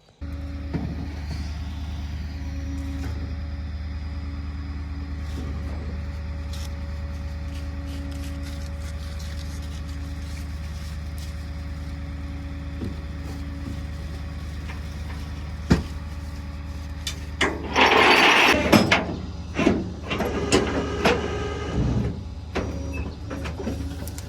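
A vehicle engine running steadily with a low, even drone. About three-quarters of the way through comes a loud burst of hissing noise, followed by a few knocks.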